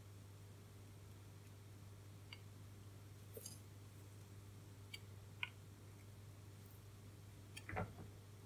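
Near silence over a low steady hum, with a few faint small clicks and one soft knock about three-quarters through, from soldering work on the resistor leads of a circuit board.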